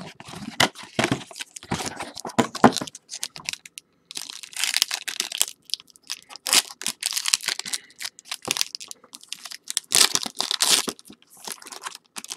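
A trading card pack being torn open and handled, in irregular bursts of tearing and wrapper crinkling.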